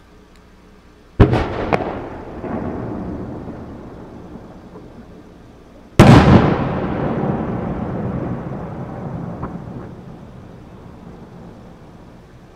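Two loud aerial firework shell bursts about five seconds apart. The first has a second crack just after it. Each trails off in a long rumble that fades over several seconds.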